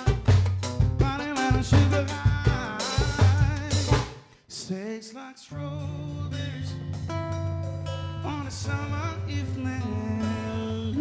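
A song with drum kit and singing ends about four seconds in; after a short pause, the instrumental introduction of the next song starts with steady, sustained notes.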